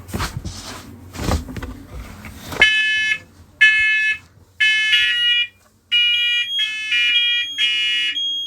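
Several interconnected smoke alarms going off together in a test set off from one unit. After a few knocks and rustles, they start beeping about two and a half seconds in, at first in three-beep groups. Then the alarms, each at its own pitch, fall out of step and their beeps overlap into almost continuous beeping.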